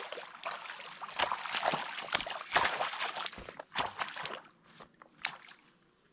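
A hooked asp thrashing and splashing in the shallows at the water's edge as it is landed by hand. A quick run of sharp splashes thins out after about four and a half seconds, with one last splash near the end.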